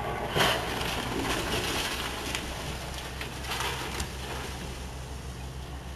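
Hydraulic excavator demolishing a masonry building: its diesel engine runs steadily under knocks and crashes of breaking walls and falling debris, the loudest about half a second in. Street traffic passes in front.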